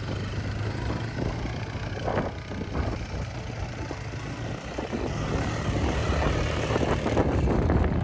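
Quad bike (ATV) engines running as they ride across sand dunes, a steady low hum that grows louder toward the end.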